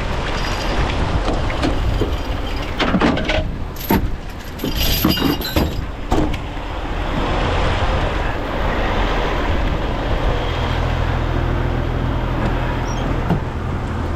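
Heavy truck engine running under a steady rushing noise, with several sharp knocks about three to six seconds in.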